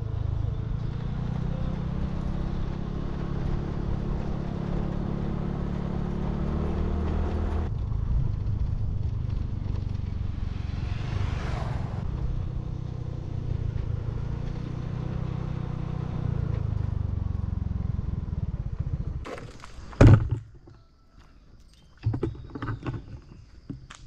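A vehicle engine running steadily, its pitch shifting about a third of the way in, with a brief swishing sweep in the middle. It fades out near the end, followed by one loud thump and a few faint clicks.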